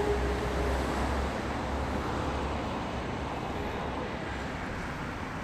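Steady city road-traffic noise, vehicles running along a nearby street, with a low rumble that eases after about a second and a half.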